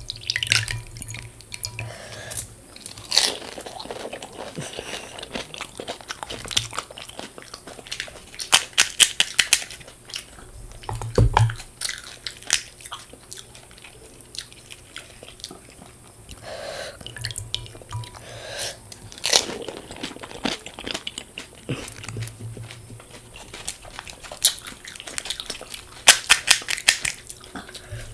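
A person eating panipuri (fuchka), close to the microphone: the crisp puri shells crunch in several bursts of sharp crackles, with quieter chewing in between.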